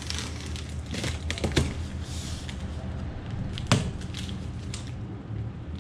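Cardboard shipping box being cut open with a knife and unpacked: a series of sharp snaps and cracks from the tape and flaps, a tearing rustle, then the crinkle of plastic packaging, with one loud knock about three and a half seconds in.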